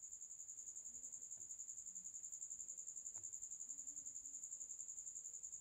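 Faint, steady high-pitched insect trill, pulsing rapidly without a break, with a faint tick about three seconds in.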